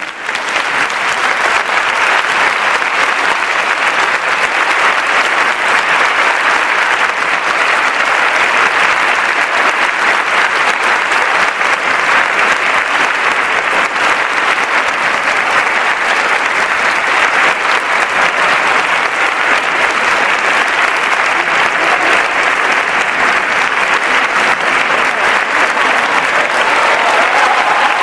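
Large audience clapping continuously, a dense, steady applause that swells up quickly at the start and holds at a constant level.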